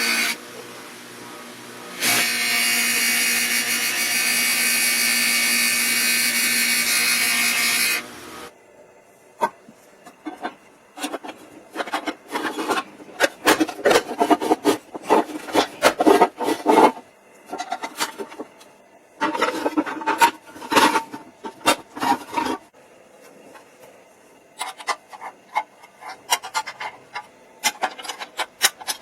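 A power tool runs steadily for about six seconds and cuts off. It is followed by bursts of quick, irregular scraping or rubbing strokes, like filing or sanding by hand.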